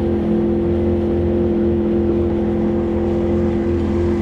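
Outboard motor running at a steady speed with the boat under way, a constant drone that neither rises nor falls.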